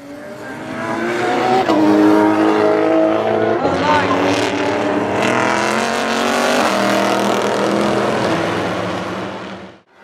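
Ferrari 458 GT race cars' V8 engines at high revs, accelerating hard past the listener. The engine note climbs, then steps down at quick upshifts about two, four and seven seconds in. It fades just before the end.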